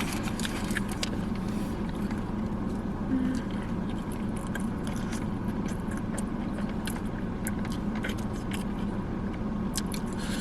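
Chewing and small wet mouth clicks from someone eating chicken wings, over a steady low hum inside a car.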